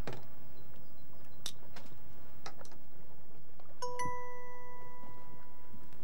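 A few light knocks, then a single bell-like chime about four seconds in that keeps ringing steadily.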